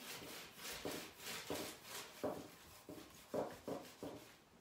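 Small craft iron rubbed back and forth over a paper sheet on a wooden stool seat, a soft rustling rub with each stroke, a little under two strokes a second. It is heat-bonding decoupage tissue onto the seat by the iron-on method.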